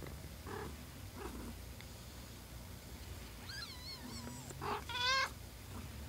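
Day-old kittens mewing: faint short squeaks, then high, wavering cries from about three and a half seconds in, the loudest just after five seconds, over a low, steady purr from the mother cat.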